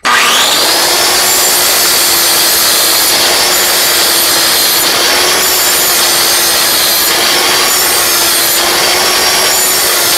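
Angle grinder with a 40-grit ceramic flap disc switched on, its whine rising as it spins up within about a second, then grinding steadily along a steel lawn mower blade's cutting edge to raise a burr.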